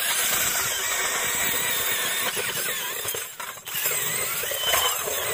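A DeWalt cordless drill turns an ice auger, boring through thick lake ice, with a wavering motor whine over the grinding of the blades. It stops briefly about three seconds in, then drills on.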